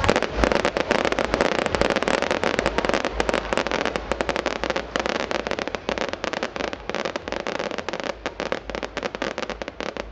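Aerial fireworks crackling overhead: a dense, rapid run of sharp pops and snaps from glittering crackle bursts. It thins out and gets quieter toward the end.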